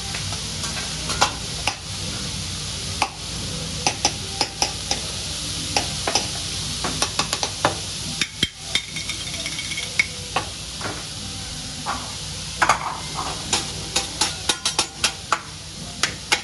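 Food sizzling on a hibachi steel griddle: a steady frying hiss, broken by many sharp clicks and taps that come in clusters, thickest in the second half.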